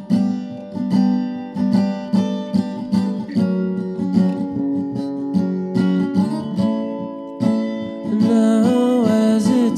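Background music: acoustic guitar picking, with a singing voice coming in about eight seconds in.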